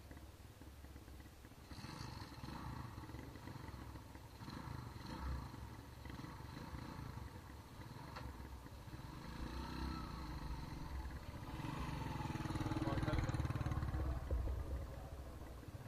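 Small motorcycle engines running along a dirt track, with a low rumble. It grows loudest a few seconds before the end as one bike rides close past, then fades.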